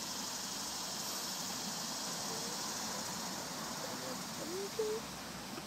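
Steady high-pitched buzz of insects, crickets or cicadas, droning without a break.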